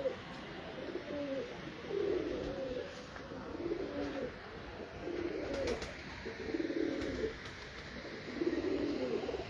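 Domestic pigeons cooing: a steady string of low coos, roughly one a second.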